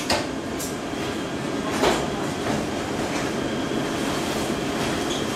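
Steady hum of a high-frequency PVC welding machine, with a few clunks and clicks from the welding die and its clamping knobs being handled as the die is mounted and locked; the loudest knock comes about two seconds in.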